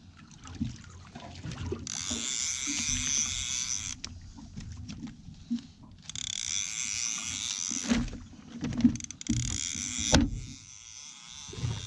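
Fishing reel whirring in bursts of about two seconds, three times, as the line is reeled in against a fish on a hard-bent rod. A few sharp knocks fall near the end.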